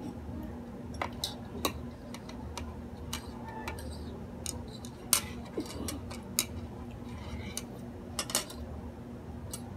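Metal chopsticks clicking against each other and tapping on a ceramic plate as they are fumbled with: a dozen or so sharp, irregular clicks, the loudest about five seconds in.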